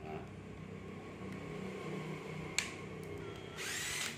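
Cordless impact driver tested on its slow speed setting: the motor runs with a steady low hum, one sharp click comes a little past halfway, and there is a short, higher-pitched burst of spinning near the end.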